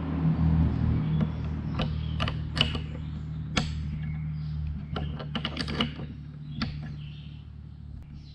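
Steel wrenches clicking and clinking against a hydraulic quick coupler as it is tightened onto a hose end. The clicks come scattered, thickest in the middle, over a steady low hum.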